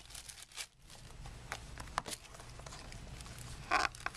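Trading cards and their pack wrappers being handled: light scattered clicks and scrapes with a brief louder rustle near the end, over a steady low hum.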